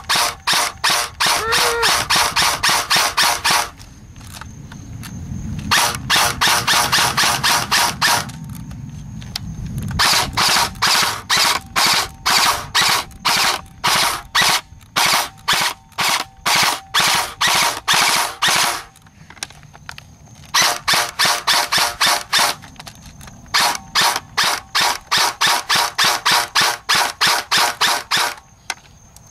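JG M16A2 airsoft rifle firing .20 g BBs in quick shots, about three to four a second. The shots come in five strings, with pauses of a second or two between them.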